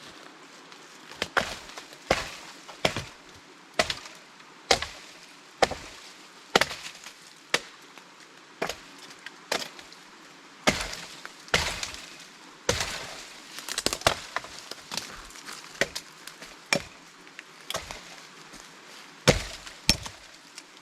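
Blade chopping into a wooden pole, trimming it clean and even: sharp single strikes about once a second, some harder than others.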